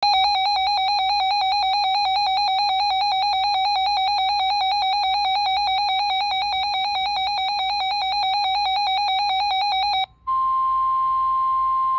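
Weather radio alert: a fast, buzzy electronic warble repeats evenly for about ten seconds and cuts off. After a brief gap, one steady tone begins: the 1050 Hz NOAA Weather Radio warning alarm tone that announces a broadcast warning.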